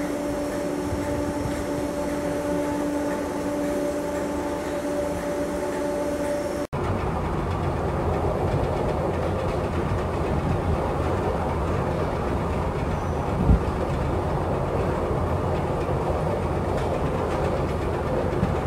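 Merseyrail electric train standing at an underground platform with its doors open, a steady hum with a few held tones. About a third of the way in, a cut to a Schindler escalator running: a steady rumble of the moving steps, with a single knock about two-thirds of the way through.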